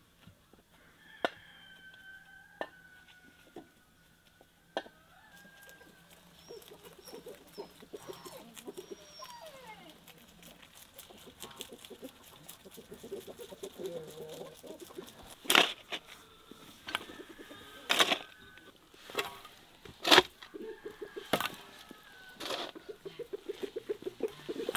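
Chickens clucking, broken by a number of sharp knocks that come mostly in the second half.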